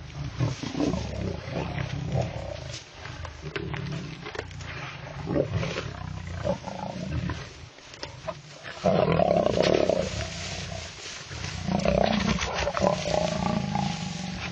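A group of lions growling and roaring as they fight over a kill, with the loudest snarling outburst about nine seconds in and another a few seconds later.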